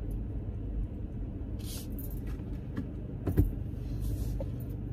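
Steady low rumble of a car's engine and road noise heard inside the cabin while driving, with a few brief hissing rustles and a sharp knock about three and a half seconds in.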